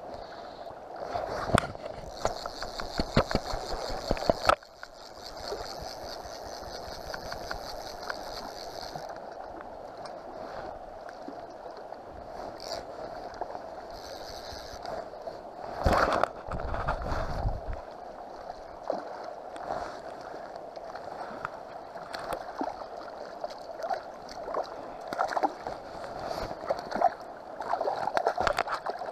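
River water running steadily around a wading angler, with a fly reel clicking as line is reeled in during the first few seconds. A loud bump about halfway through, and a hooked fish splashing at the surface near the end.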